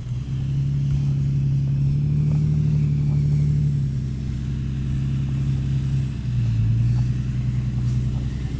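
Jeep engine running under throttle while towing a snow tube. The engine note rises right at the start, holds steady, drops lower about six seconds in, then climbs back up near the end.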